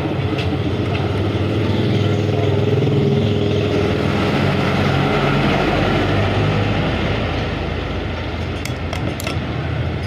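A motor-vehicle engine running steadily, with a few light metallic clicks near the end.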